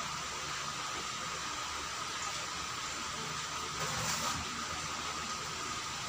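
Steady hiss of an electric fan running, with a faint thin hum, and a brief slight swell in the noise about four seconds in.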